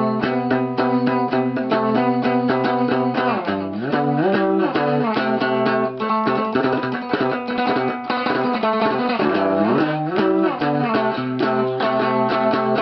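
Instrumental guitar music: quick picked notes over held low notes, with a sliding glide in pitch about four seconds in and again about nine seconds in.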